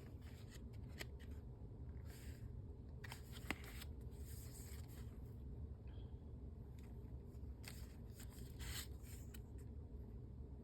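Paper pages of a handmade junk journal being turned and handled: a series of short, soft rustles and a few light taps, about one every second or so.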